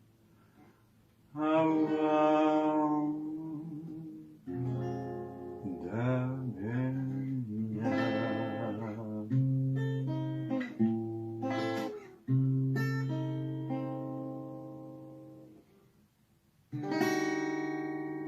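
Acoustic guitar playing an instrumental passage without voice: strummed chords that ring and fade, with picked single notes between them, and a short pause before one last chord near the end.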